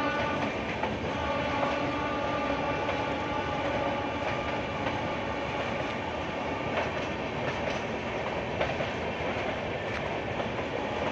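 Express train running through the station at speed: a steady rush of wheels on rails with scattered clicks of the wheels over rail joints. A horn note dies away within the first second.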